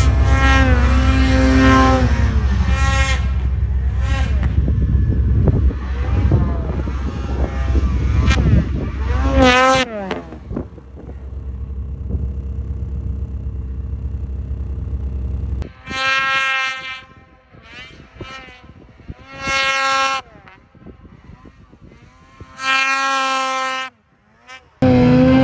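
Snowmobile engines revving hard. For the first ten seconds the engine is loud, its pitch rising and falling over a deep rumble. After a quieter stretch come short bursts of high revs, about one every three seconds.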